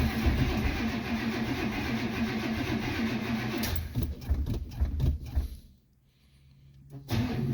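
Starter cranking the Buick Electra's freshly rebuilt engine without it catching. The cranking falters and stops for about a second a few seconds in, then resumes near the end.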